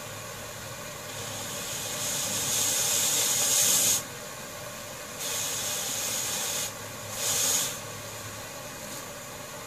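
Compressed air hissing through an opened ball valve, blowing powdered dry fuel into a propane torch flame, in three blasts. The first swells over about three seconds and cuts off sharply; a shorter one follows, then a brief puff.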